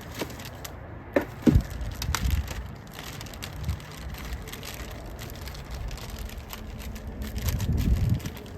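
Handling noise from a shot block of wet clay target: a few sharp knocks about a second and a half in, then scraping and rustling.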